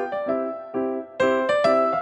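Background music: a bright electric piano or keyboard tune of repeated, evenly struck notes.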